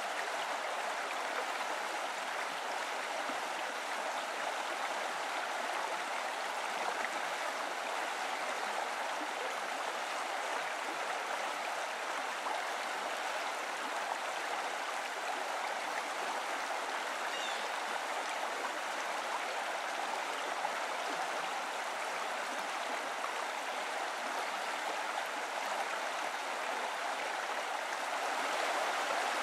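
Running water at a hot spring, a steady unbroken rush.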